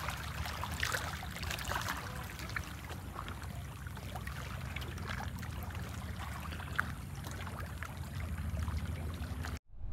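Small waves lapping and splashing gently against a rocky shoreline, with a steady low rumble underneath; the sound cuts off suddenly near the end.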